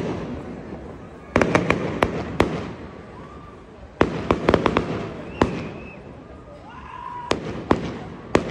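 Aerial fireworks bursting overhead. A volley of rapid sharp cracks comes about a second and a half in, another about four seconds in, and single bangs follow near the end.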